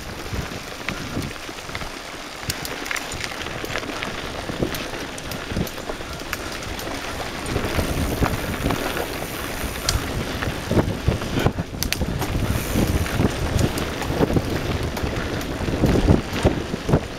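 Mountain bike riding over a dry, rocky dirt trail: tyres crunching over gravel with frequent clicks and rattles from the bike, and wind buffeting the microphone. The rumble and knocking get louder about halfway through.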